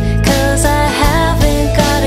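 Background music: a song with a gliding melody line over a steady bass and beat.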